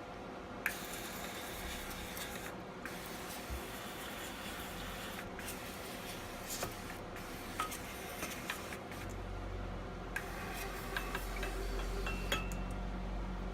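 Rustling and rubbing with scattered small clicks and knocks as a rebuilt steering rack is handled and unpacked; a low hum joins about nine seconds in.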